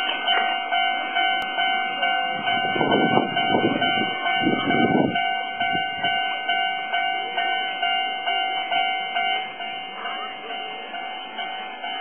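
Japanese railway level-crossing alarm ringing: an electronic bell repeating a steady ding of several tones at an even beat, warning that a train is approaching. A few seconds in, a louder, lower rushing noise swells and fades.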